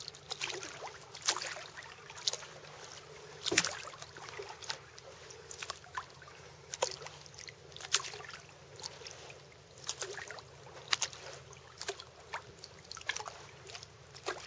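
Kayak paddle blades dipping into calm lake water, a short splash and drip roughly every second or so as the paddler strokes.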